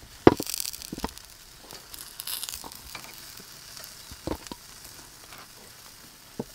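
Steel tongs knocking against a steel tray as grilled chicken drumsticks are set down, the sharpest knock about a quarter second in and a few more scattered after, over a faint sizzle from the charcoal grill.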